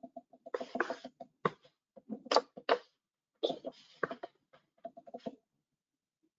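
Computer keyboard typing and clicking picked up by the presenter's microphone: irregular clusters of keystrokes broken by short pauses.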